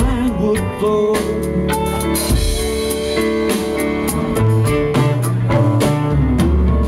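Live rock band playing: electric guitars over a drum kit, with cymbal hits cutting through.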